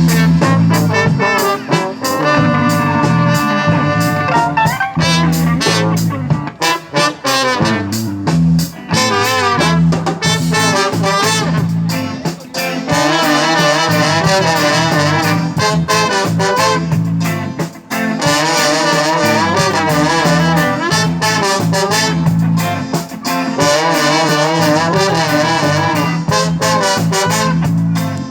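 A live band playing, with a horn section carrying the melody over a steady bass beat.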